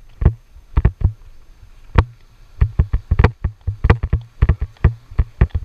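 Irregular series of sharp knocks or clacks, each with a dull thud beneath. A few come in the first two seconds, then they quicken to about three a second, some in close pairs.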